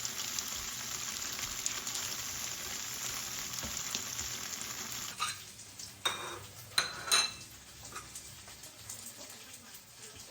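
Food sizzling steadily in a frying pan. About halfway through the sizzle drops away, and a utensil strikes the pan sharply about four times.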